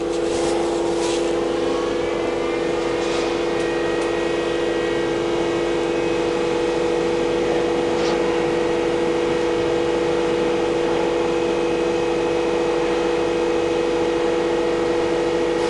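Mazak Quick Turn QT-6T CNC lathe just powered up and loading, giving a steady machine hum with a couple of faint clicks.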